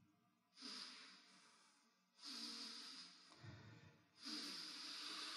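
Three faint breaths picked up by a close microphone: a Quran reciter drawing breath in the pause between verses.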